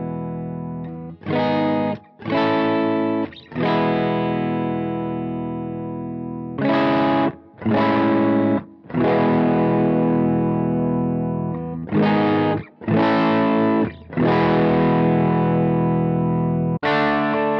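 Electric guitar played through the JV Effects Honeycomb, a Fatbee-style overdrive pedal, giving a warm, mildly driven tone. Strummed chords alternate between short stabs and chords left to ring for two or three seconds, each one cut off sharply before the next.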